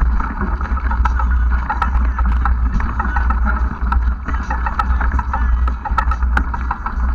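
Ride noise from a camera mounted on a bike moving along a rooty dirt trail: a steady heavy rumble of wind and vibration on the camera housing, a busy rattle, and several sharp knocks from bumps.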